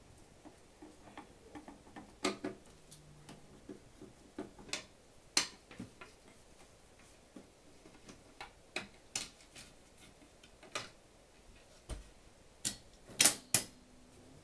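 Screwdriver turning out screws and scattered small clicks and clacks as screws and cover parts come off a 1978 RCA VCT-200 VCR, in an irregular pattern. A quick run of the loudest clicks comes near the end as the cover panel is lifted away.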